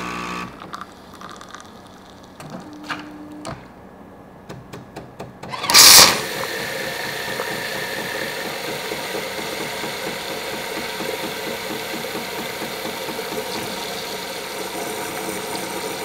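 Jura S8 espresso machine frothing milk through its fine foam frother for a caffè latte: a sudden loud burst about six seconds in, then a steady hiss and sputter of steam and milk from the spout. Before the burst the machine gives a few clicks and a short hum.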